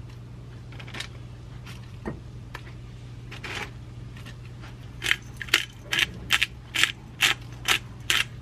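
A hand-twisted pepper grinder crunching out pepper, a regular series of grinding strokes about two a second that starts about five seconds in. Before that, a few soft clicks of metal tongs setting down pieces of roasted kabocha squash.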